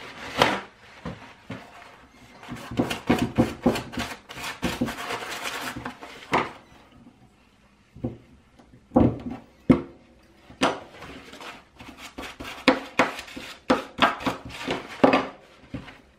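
A small brush scrubbing a freshly soldered circuit board clean, a run of quick scratchy strokes, then a series of separate clicks and knocks as the board is handled, freed from its metal clamp and set on the bench.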